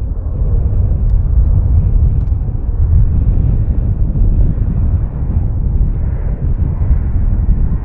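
Wind buffeting the microphone with a loud, steady low rumble, mixed with the engine noise of a jet airliner at the airport.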